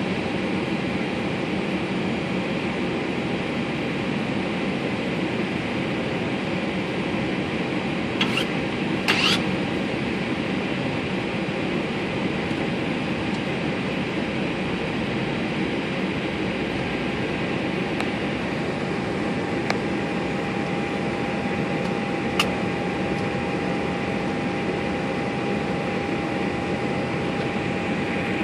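Steady rushing background noise inside an Airbus A320 cockpit, ventilation and airflow, with a few short clicks about a third of the way in and again later. A faint steady tone joins about two-thirds of the way through.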